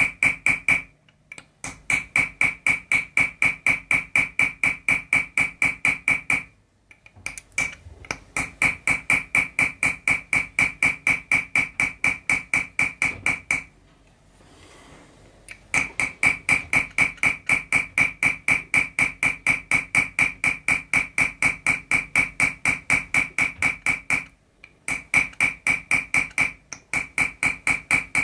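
Chasing hammer tapping a steel chasing tool into 0.6 mm copper sheet set in pitch: a fast, even run of light strikes, about five a second, each with a high metallic ring. The tapping breaks off for short pauses several times, the longest for about two seconds some fourteen seconds in.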